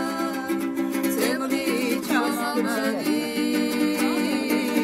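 Women singing a Georgian song to a strummed panduri, a long-necked Georgian folk lute, whose repeated chords keep a steady beat under the bending vocal line.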